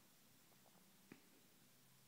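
Near silence with a faint click about a second in, from small plastic airsoft gun parts being handled.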